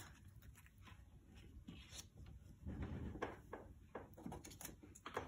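Faint rustling and light taps of a paper number card being handled and pressed onto a fabric calendar board, a few short scattered clicks with quiet between them.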